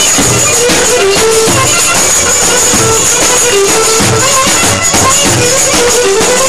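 Loud live Turkish dance music played on an electronic arranger keyboard: a quick melody of short notes over a steady drum beat.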